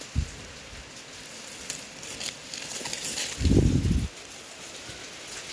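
Light crackling and rustling of plant leaves, with a short low thump just after the start and a louder low, muffled rumble of about half a second a little past the middle.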